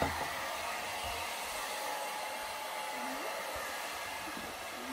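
Handheld hair dryer running steadily, a constant airy hiss with a faint whine.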